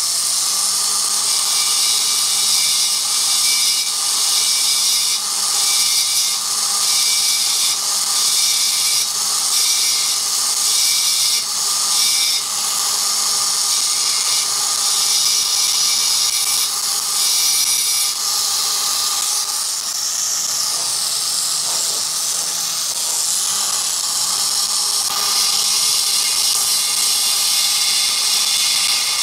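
High-speed rotary grinder whining and hissing as its small bit cuts into the aluminium port of a 1972 Yamaha AT-2 two-stroke cylinder, grinding out casting slag during porting. The pitch and grind change every second or so as the bit is pressed on and eased off the metal.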